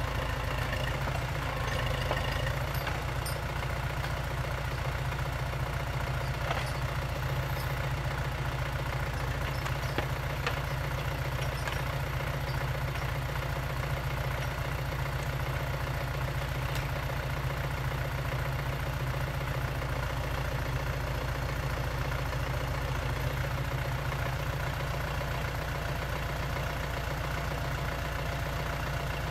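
Jumz excavator's engine running steadily with an even low hum, a few faint clicks on top.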